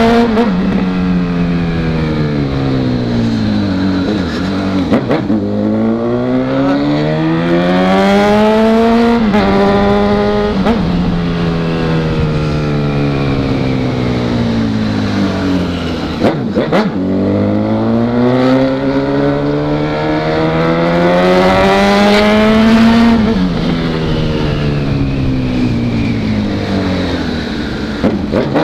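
Honda CB1000R's inline-four engine under way on the road. The revs rise over several seconds and then fall back several times as the rider accelerates and rolls off the throttle.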